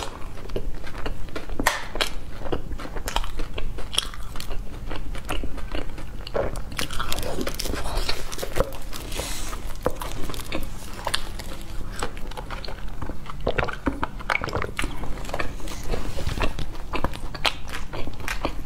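Close-miked chewing and biting of toasted bread, with irregular crunches and small mouth clicks.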